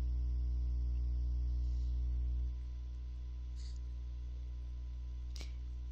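Steady electrical mains hum picked up by the recording microphone, a low tone with a buzz of overtones. Its low part drops in level about two and a half seconds in, and there is a faint click about five seconds in.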